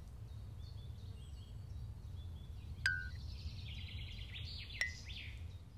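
Faint background ambience: a low steady rumble with soft, high birdsong chirps, and two short blips, about three seconds in and again about five seconds in.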